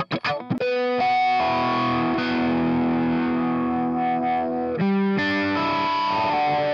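Distorted electric guitar loop from Steinberg's Nu Metal sample collection being previewed. A few quick chugged strokes give way about half a second in to long held distorted chords, with a new chord struck about five seconds in.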